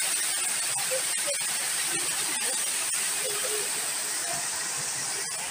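Peterhof's Pyramid Fountain: its tall water jet and the water falling over its stepped cascades make a steady, even hiss of spray.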